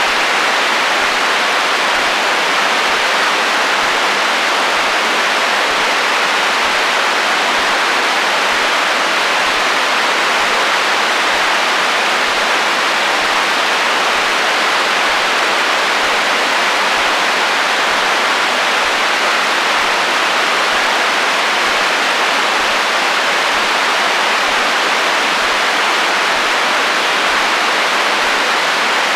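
Radio receiver hiss: a steady, even wash of static from a radio tuned between stations, with no tone or voice breaking through.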